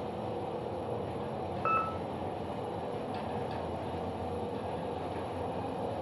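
KONE elevator car rising with a steady running hum. About two seconds in there is one short electronic beep, which recurs every few seconds as the car passes each floor.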